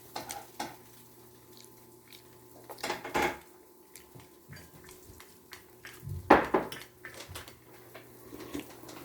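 Eating utensils clinking and knocking against dishes in scattered strokes, the loudest a little after six seconds in.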